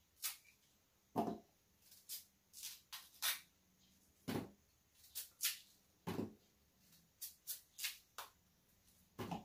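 Small knife peeling and cutting a pear by hand: a run of short, crisp slicing and scraping sounds, several a second. Four louder, duller knocks are spaced through it.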